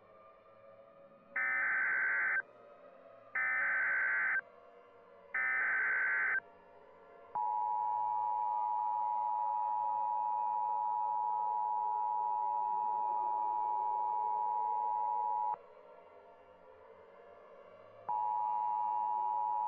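Emergency Alert System SAME header: three one-second bursts of screeching data tones, a second apart. Then comes the EAS two-tone attention signal, held for about eight seconds. It cuts off and starts again about two and a half seconds later.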